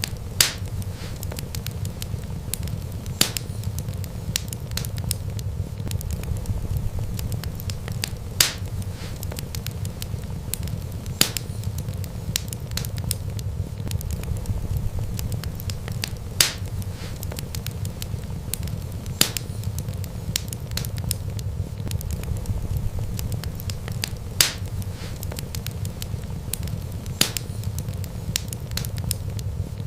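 Wood fire burning, with a steady low rumble of flames and sharp crackles and pops from the burning wood every few seconds.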